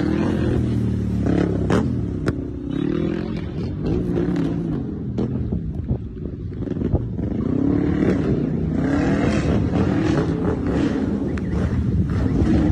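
Motor vehicle engines revving, their pitch rising and falling again and again.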